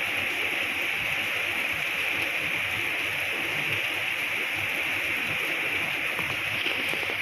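Steady rain falling, an even hiss of water with no let-up.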